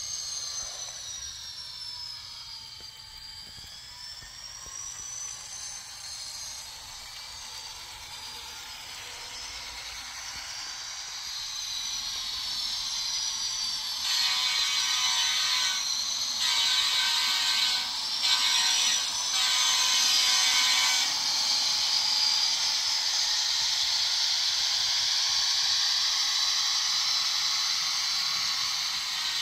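A lash-up of N-scale Bachmann GP40 model diesel locomotives running on track, their motors and gears making a high whine that wavers up and down in pitch. It grows louder a little under halfway through as the train comes close.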